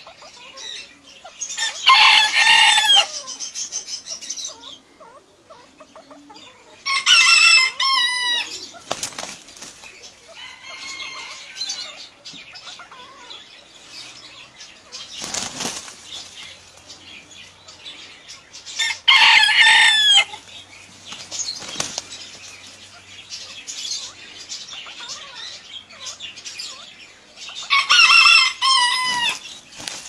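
A rooster crowing four times, each crow about a second long and several seconds apart. Between the crows, softer wing flapping and scuffling come from a rooster and a male golden pheasant sparring.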